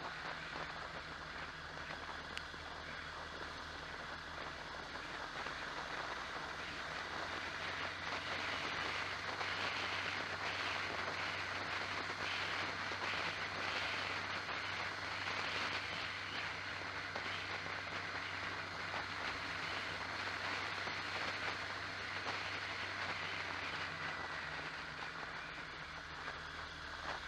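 Onboard sound of a vehicle being driven along the road: a steady engine hum under a rush of wind and road noise, growing somewhat louder in the middle.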